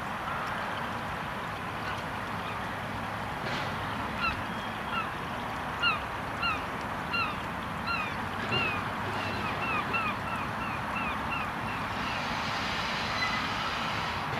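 A bird honking over and over, short downward-sliding calls coming a little faster as they go, over a steady low background of running noise and wind from the slowly approaching steam railmotor.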